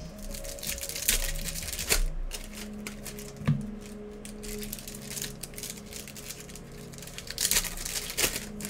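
Trading cards and foil pack wrappers being handled: an irregular run of light clicks and rustles as cards are flipped through, with a few sharper snaps.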